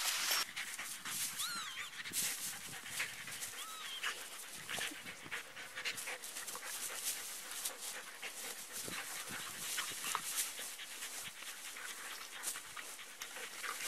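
Lurchers panting and scuffling through long grass as they play, a dense crackle of rustling, with a couple of short high squeaks about a second and a half and four seconds in.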